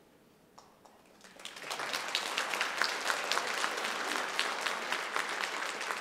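Audience applauding. The clapping starts about a second in, swells quickly and settles into steady, dense applause.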